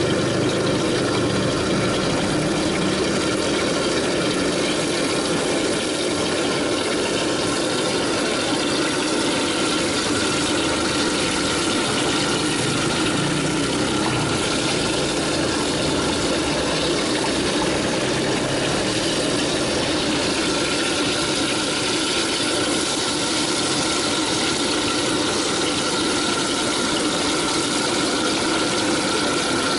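Gas burner under a street-food wok running with a steady roar.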